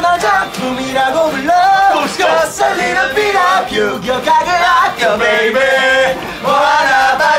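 Young men singing loudly in a tipsy, off-hand way, held notes wavering up and down.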